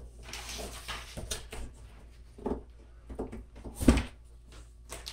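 Unboxing noises from a cardboard computer box and its paper inserts: rustling and scattered knocks, with one sharp thump about four seconds in.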